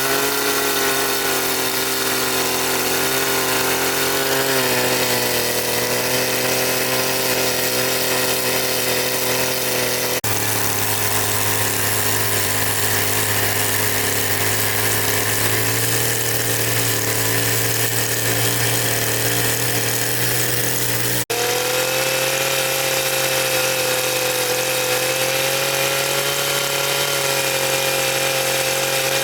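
A motor running steadily with a droning hum whose pitch drifts slowly, cut off and resumed abruptly twice.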